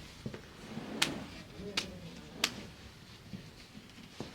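Three sharp clicks, evenly spaced about two-thirds of a second apart, with a few fainter taps and a soft murmur of voices in a small room.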